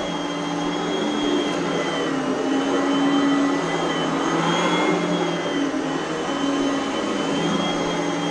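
Oreck Elevate Conquer upright vacuum cleaner running on its carpet setting: a steady motor drone with a high whine whose pitch wavers slightly as the load changes.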